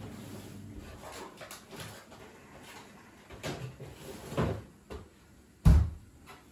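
A few scattered knocks and clunks of things being handled, the loudest a heavy thump near the end. A low steady hum stops about a second in.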